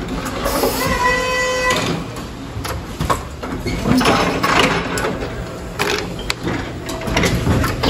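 Electric forklift at work, its motor whirring, with scattered knocks of the load and mast. A single steady beep sounds about a second in.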